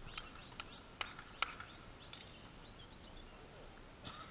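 Four sharp slaps of a volleyball about 0.4 s apart in the first second and a half, the last the loudest. Birds chirp in the background.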